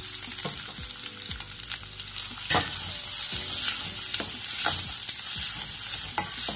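Chopped onions sizzling in hot oil in a stainless steel kadai as a metal spoon stirs them, with a steady hiss and several sharp scrapes and knocks of the spoon against the pan. This is the onions starting to sauté after going into the tempered spices.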